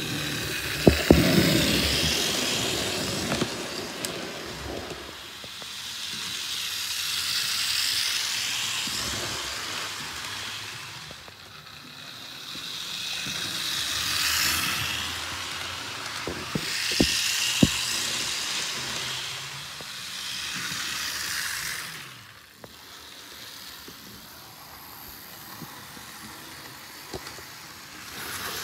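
Model train locomotive running laps of a small track loop, its motor and wheels whirring louder each time it passes close by, about every six seconds. A few sharp clicks come from the track.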